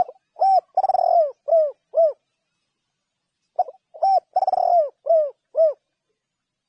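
Spotted dove cooing: two song phrases about three and a half seconds apart. Each is a couple of short coos, a longer rolling coo, then three evenly spaced coos.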